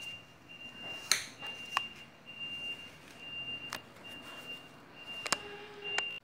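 A knife cutting a frozen geladinho (milk ice pop in a plastic bag) on a ceramic plate: a few sharp clicks and taps of the blade and the plate. Under them runs a faint, high, thin whine that keeps breaking off and coming back.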